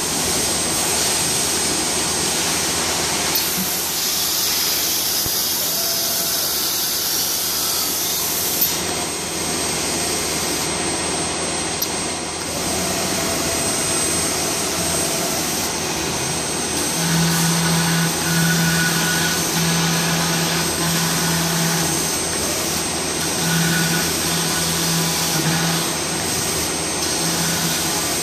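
Alucenter Nuovo 4016 vertical CNC machine running: its milling spindle and dust extraction give a steady rushing noise with a thin high whine. From about two-thirds through, a low hum comes and goes in short stretches.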